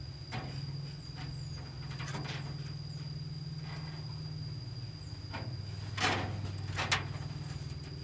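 A caged lovebird lunging and biting at a finger through the wire mesh: a few sharp clicks, the two loudest about six and seven seconds in, over a steady low hum and a faint high steady whine.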